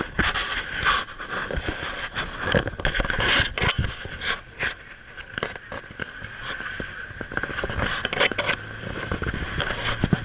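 Riding in the open back of a moving vehicle: wind buffeting the handheld camera's microphone, with many irregular knocks and rattles from the vehicle over a steady hiss.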